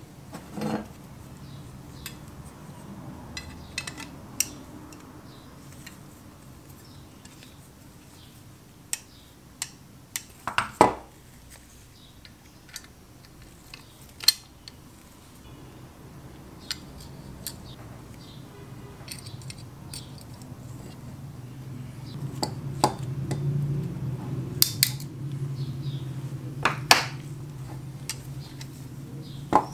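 Small metal parts of a toy cap-gun revolver clicking and clinking as they are handled and fitted together, with a few sharper clicks spread through. A low hum comes up in the last third.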